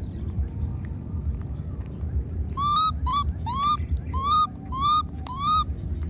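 Baby macaque giving six short, high coo calls in quick succession, each rising then falling in pitch, starting about halfway through, over a steady low rumble.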